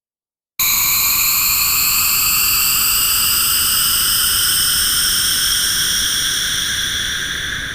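Synthesized white-noise sweep effect for electronic dance-music production: after a short silence it starts abruptly about half a second in and holds loud and steady. A comb-filtered shimmer drifts slowly downward in pitch, and the noise begins to fade near the end.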